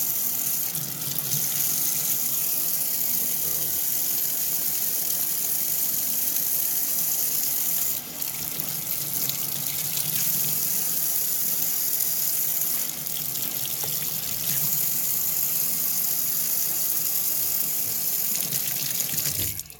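Water running steadily from a tap as paint stripper is rinsed off a die-cast model casting, shut off suddenly near the end.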